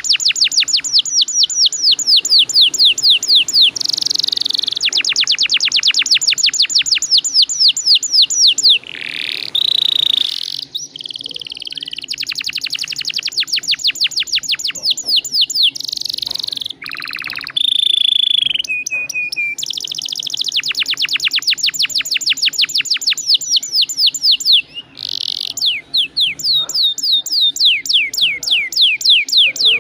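Domestic canary singing long rolling trills: fast runs of repeated downward-sweeping notes, about ten a second, broken a few times by short whistles and chirps.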